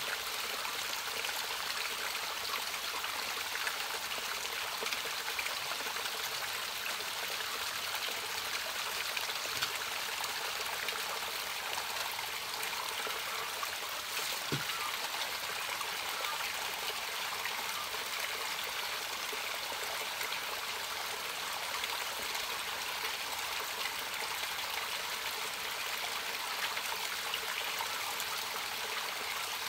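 Steady running water of a small spring or stream trickling over rock, with one light knock about halfway through.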